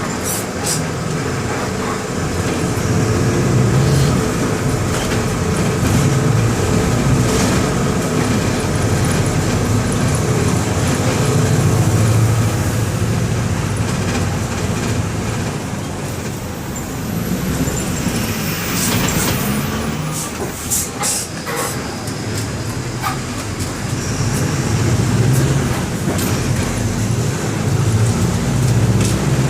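Mercedes-Benz OM-924 LA four-cylinder inline diesel of an OF-1721 BlueTec 5 bus running on the move, heard on board; the engine note swells and eases several times. A cluster of sharp clicks and rattles comes about two-thirds of the way through.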